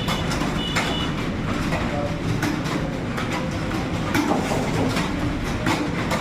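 Several computer keyboards typed on fast at once: a dense, continuous clatter of keystrokes.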